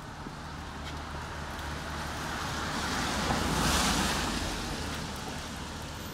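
A car passing on a rain-soaked street: the hiss of its tyres on the wet pavement swells to a peak about halfway through and fades away, over a steady low hum.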